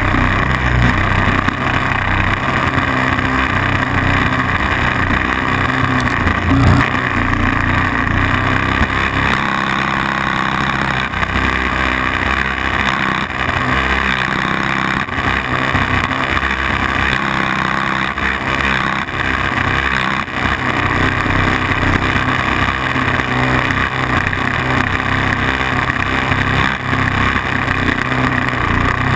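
Mechanair spark-ignition model aircraft engine running steadily and driving its propeller, heard close up from on board the model.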